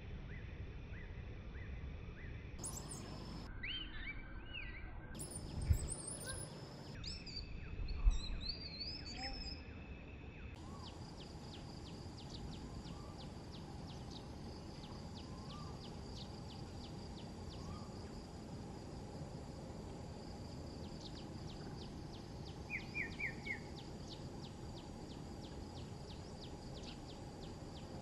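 Outdoor ambience of birds chirping and insects calling over a low steady rumble, with two dull thumps a few seconds in and a quick run of three chirps later on.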